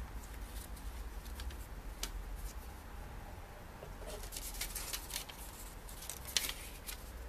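Paper leaflets being handled and unfolded: scattered crackles and rustles, busiest about four to five seconds in, with a sharper crackle near the end, over a steady low hum.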